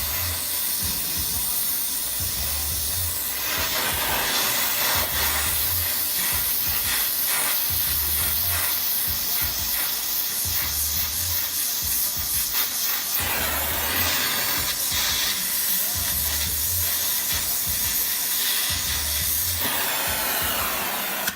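Oxy-acetylene torch flame hissing steadily as it heats a rusted exhaust nut toward red hot to break the rust bond on the threads; the hiss cuts off suddenly at the very end.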